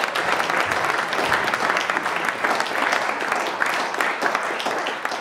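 Audience applauding, a dense steady patter of clapping hands that begins to die away near the end.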